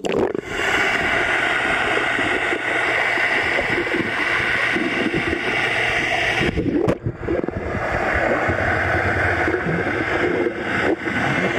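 Swimming-pool water heard through a microphone under the surface: a steady muffled rushing and bubbling as a dog dives in after a ball. The noise briefly drops out about six and a half seconds in.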